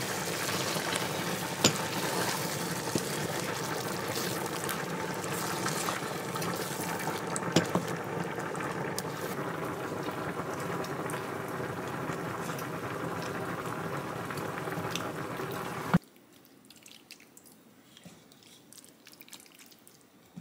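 Food boiling and simmering in pots on a stovetop, a steady bubbling with a couple of sharp clinks. About three quarters of the way in it cuts off suddenly to near quiet.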